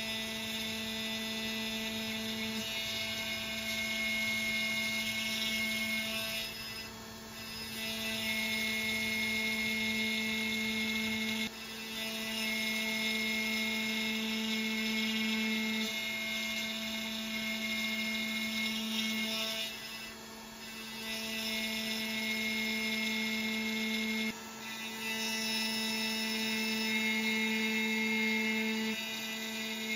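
Makera Carvera Air desktop CNC milling slots in 1/8-inch aluminum plate with a single-flute carbide end mill, spindle at 12,000 RPM. The cut makes a steady pitched whine with a high singing edge, dipping briefly a few times as the cutter works back and forth along the slot.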